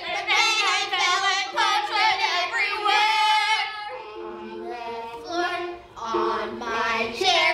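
Young girls singing a pop song together, with a long held note ending about halfway and lower notes after it.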